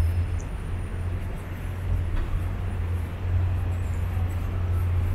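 City street background noise dominated by a steady low rumble.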